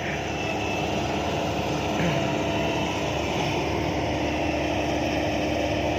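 Heavy truck diesel engine running steadily, a constant drone with a steady hum.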